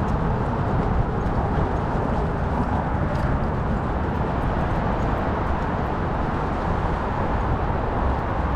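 Steady outdoor rumble of wind and traffic noise on a bridge walkway, picked up by a GoPro camera strapped to a walking dog's back.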